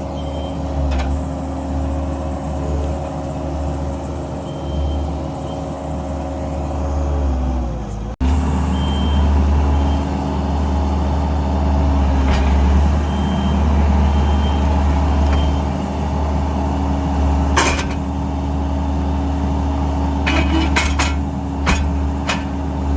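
Kubota skid steer's diesel engine running steadily under work. Its pitch sags about seven seconds in, the sound breaks off abruptly and comes back louder, and a few sharp knocks come near the end.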